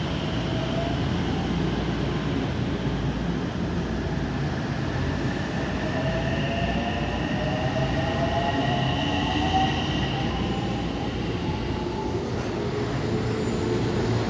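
JR West 225 series and 223 series electric train running with a steady rumble, its traction motors whining with tones that climb gradually in pitch as it gathers speed.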